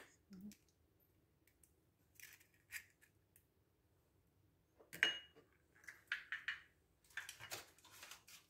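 An egg being broken open over a ceramic mixing bowl and its shell emptied: faint clicks and light taps of shell and hands, with a sharper clink about five seconds in.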